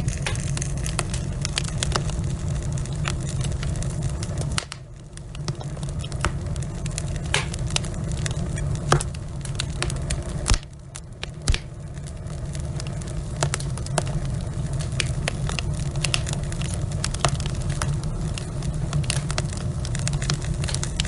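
Wood logs burning in a fireplace, crackling and popping continuously over a steady low rush of flame. A few louder pops stand out, and the rush drops away briefly twice, about five and eleven seconds in.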